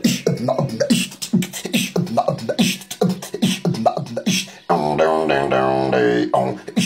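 A rooster making a fast run of short clucking calls, about three or four a second, each dipping in pitch, with one longer drawn-out call about five seconds in.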